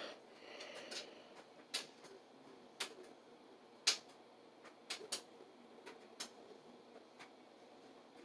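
Faint, sharp clicks, about ten of them at irregular intervals of roughly a second, over low room hiss.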